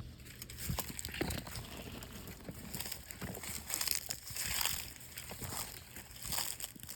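Footsteps crunching and rustling through dry leaves and thick brush, in irregular steps.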